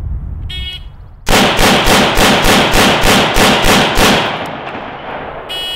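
A shot timer beeps to start, then an AR-15-type carbine fires ten rapid shots in about three seconds, roughly three shots a second, with the echo fading after the last one. The timer beeps again near the end, marking the 5-second par time.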